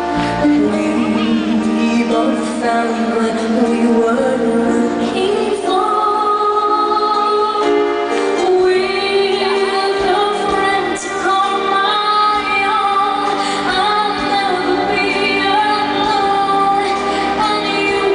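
A woman singing a slow melody live into a handheld microphone over instrumental accompaniment, amplified through a concert sound system.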